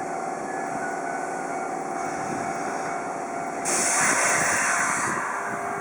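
Hankyu electric commuter train at the station: steady running noise with a faint hum, then a sudden loud hiss a little past the middle that lasts about a second and a half.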